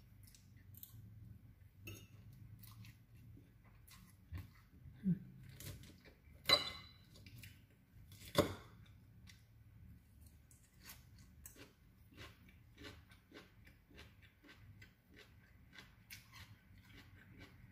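Close-up eating sounds: chewing with many small crunching clicks, and a fork clinking and scraping on the noodle plate and salad bowl, loudest twice a little past the middle.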